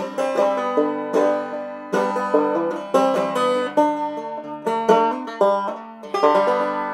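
Background music: an upbeat plucked-string instrumental in a country or bluegrass style, a quick run of sharply picked notes that ends on a chord left ringing and fading near the end.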